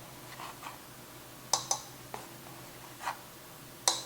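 Measuring spoon tapping lightly, several short clicks: a pair about a second and a half in, single ones after, and another pair near the end, as teaspoons of baking soda are measured out.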